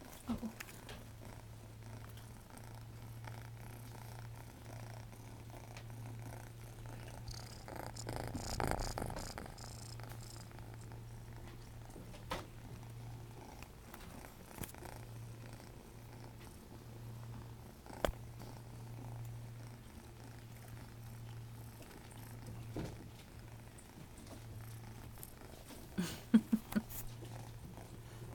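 Kitten purring steadily, the purr breaking off briefly at short, regular intervals. A scuffle about a third of the way in and a few sharp knocks, the loudest near the end, cut across it.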